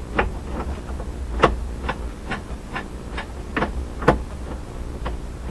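Irregular small clicks and knocks of hands and a plastic wiring plug being worked onto a pickup's headlight switch under the dash, about ten of them, with one sharper snap about a second and a half in, over a steady low hum.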